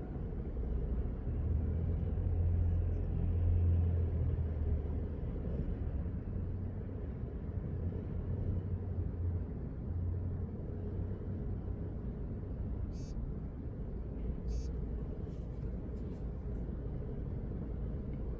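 Low, steady outdoor rumble that swells over the first few seconds and then eases to an even background, with a few faint clicks in the second half.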